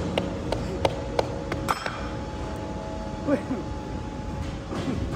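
Low steady machinery rumble with about five sharp metallic clinks in the first two seconds, some leaving a brief ringing tone, and faint voices near the middle.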